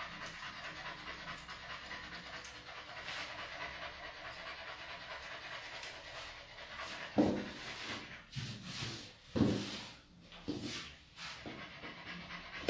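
Small mixed-breed dog panting rapidly and steadily, which the groomer puts down to nerves. In the second half come a few louder thuds.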